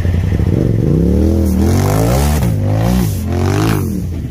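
RZR-based rock bouncer's engine idling, then revved hard three times in quick succession with a rushing noise over the revs, before dropping back toward idle near the end.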